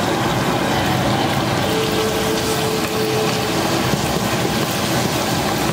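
Pieces of raw seasoned chicken frying in hot oil in a nonstick pan: a steady sizzle.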